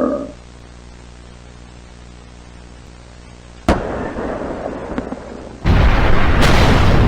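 A creature's roar cuts off at the start, then after a quiet low drone comes a sudden explosion a little past halfway that dies away over about two seconds, followed near the end by a second, louder and longer explosion with a heavy rumble that keeps going.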